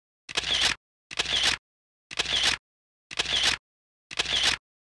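Camera shutter sound effect repeated five times, about once a second. Each one is an identical short click-and-whir with dead silence between.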